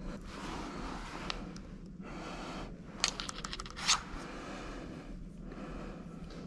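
Steady low room hum with handling noise: a quick run of clicks about three seconds in, then a short scrape, as a laptop is picked up and set in place.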